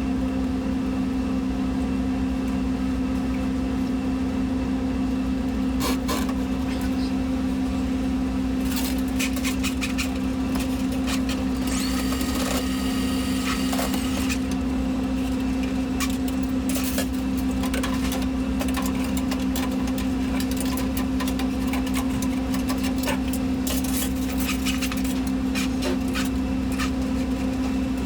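A steady motor hum under scattered clicks and scraping.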